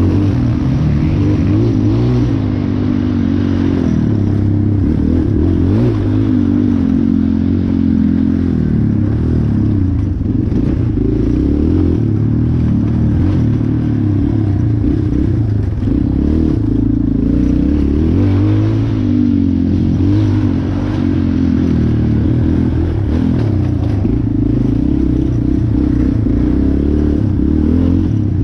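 Racing ATV's engine running hard and continuously, its pitch rising and falling again and again as the throttle is worked.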